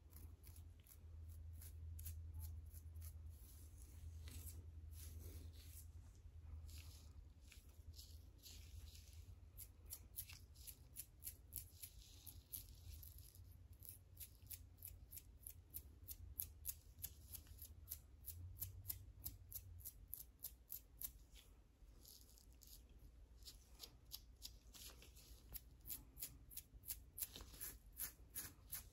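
Fingernails scratching a scalp thick with dandruff flakes, close to the microphone: quick, dry scratching strokes in rapid runs, busiest in the second half, over a steady low hum.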